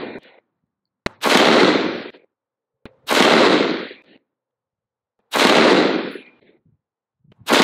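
Slow, aimed semi-automatic rifle shots from a 10.3-inch-barrelled AR-15 with a Surefire four-prong flash hider, firing 77-grain .223 match ammunition. There are four sharp reports about two seconds apart, the last near the end, each dying away over about a second.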